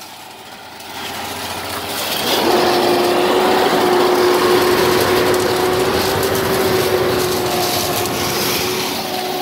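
Concrete boom pump truck running under load, its engine and pump noise building and settling about two seconds in into a steady loud whine as it pumps concrete.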